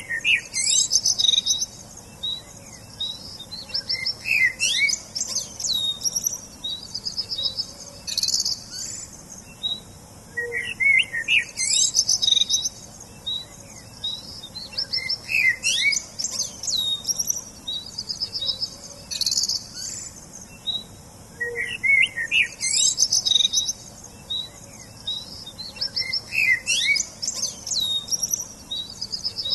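Songbirds chirping and singing: quick high chirps, trills and rising and falling whistles from several birds. The same passage comes round again about every ten seconds, as a loop.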